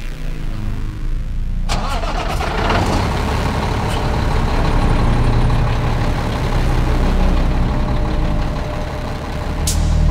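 A Renault heavy truck's diesel engine is started with the ignition key: it catches suddenly a little under two seconds in and settles into a steady idle. A few sharp clicks come near the end.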